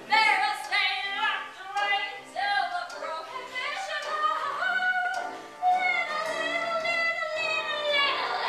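A woman singing a show tune over accompaniment, ending on one long held note with vibrato over the last few seconds.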